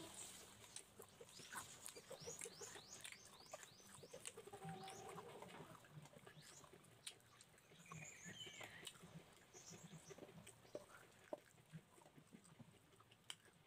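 Faint chewing and mouth smacking as a man eats rice and meat with his hands, many small clicks throughout. Birds chirp about eight to nine seconds in, and a lower animal call sounds about four seconds in.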